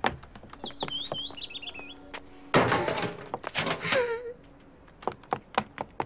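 Cartoon sound effects: light, irregular knocks throughout, a few quick high chirps about half a second in, then a loud clattering crash about two and a half seconds in that lasts over a second and ends in a falling tone.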